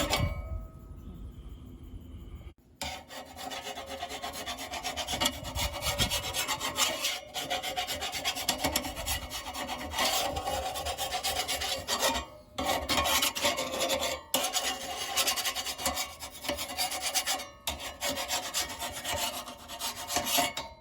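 Hand file rasping on the rusted, dull steel blades of a manual push reel lawnmower, sharpening them with rapid back-and-forth strokes, broken by a few brief pauses.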